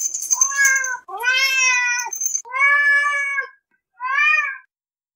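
Domestic cat meowing four times: three long drawn-out meows of about a second each and a shorter fourth one, separated by brief silences. A faint high-pitched tone and a few clicks come at the very start.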